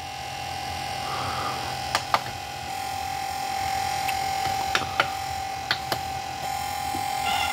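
A steady high-pitched whine over a low hum, with a few light clicks: a pair about two seconds in and several more close together later on, which fit remote control buttons being pressed to move through the DVD menu.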